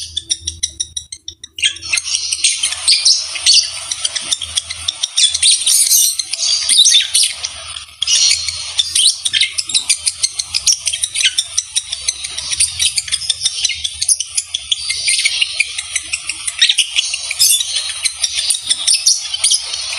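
Lovebirds chattering: a rapid, near-continuous stream of shrill chirps and squeaks, the chatter of a mating pair. It pauses briefly just after the start, picks up about two seconds in, and dips for a moment around eight seconds.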